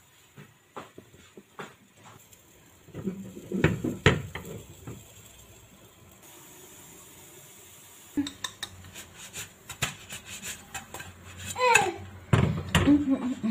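A granite-coated frying pan clattering and knocking against the gas stove's pan support as it is moved and shaken. There is a thick cluster of knocks about three seconds in, then a quieter stretch, then more clatter through the last five seconds.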